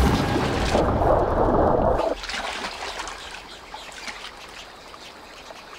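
Heavy water splashing and churning that stops abruptly about two seconds in, leaving quieter trickling and dripping water.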